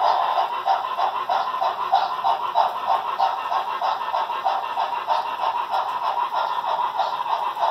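Model train running across a truss bridge on a layout, with a steady rhythmic clatter of about three beats a second.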